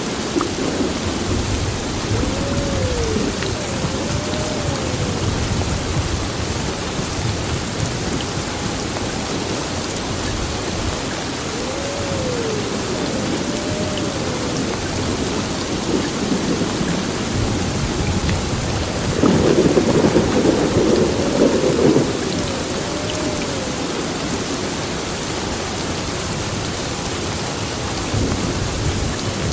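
Heavy rain pouring steadily on a building, with low rumbling thunder under it and a louder rumble of thunder about two-thirds of the way through. A faint tone that rises and falls comes back in pairs a few times.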